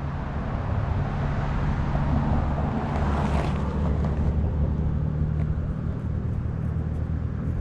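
A large engine running steadily at a constant pitch, with a rushing noise over it that swells about three seconds in.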